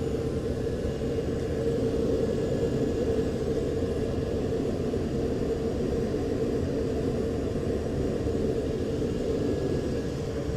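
Steady low engine rumble with a constant drone, unbroken and even in level throughout.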